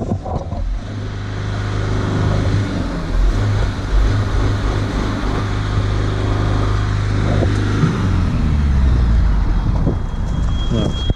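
Mercedes Sprinter 310's diesel engine idling steadily after an hour's hydrogen carbon cleaning, its revs rising briefly about two-thirds of the way in and settling back. Near the end a steady high beep starts: the hydrogen cleaning machine signalling that its cycle is finished.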